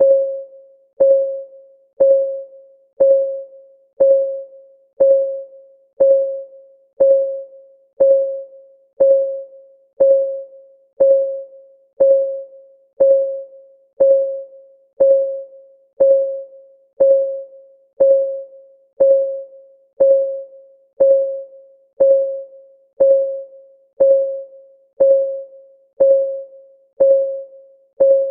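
Countdown timer's clock-ticking sound effect: a steady tick once a second, each a short pitched tick at the same pitch that fades quickly.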